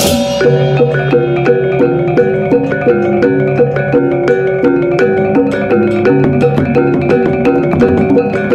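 Music: a melody of short pitched notes stepping up and down over a steady ticking beat, starting about half a second in after a drum-heavy passage ends.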